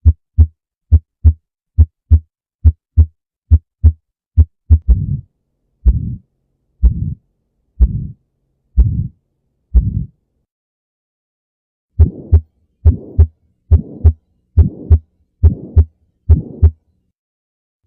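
Heart sounds recorded through a stethoscope. First come about five seconds of crisp lub-dub beat pairs with nothing between them. Then each beat is trailed by a rushing murmur, and after a two-second gap, beat pairs return with a harsher, higher-pitched murmur between them: examples of abnormal heart sounds.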